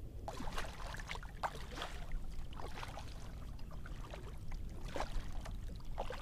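Kayak paddle strokes: a double-bladed paddle dipping into calm sea water, with irregular splashes and water trickling off the blades, over a steady low rumble.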